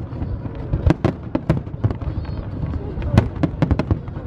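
Aerial fireworks bursting: a string of sharp bangs and cracks, with a quick run of several about three seconds in, over a steady low rumble.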